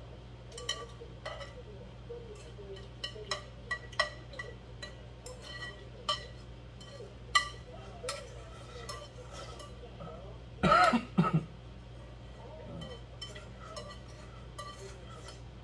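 A person drinking the leftover black-bean noodle sauce straight from a pot, with scattered small mouth and pot clicks. About eleven seconds in, a short, loud burst of three or four coughs as a bit of vegetable catches in the throat.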